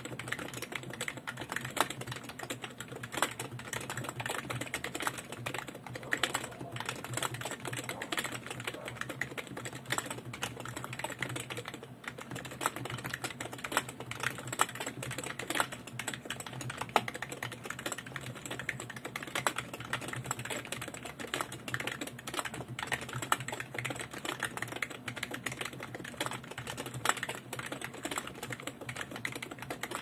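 Fast continuous typing on a BTC 5100C keyboard with BTC dome-with-slider switches: a dense stream of key clicks with a brief lull about twelve seconds in.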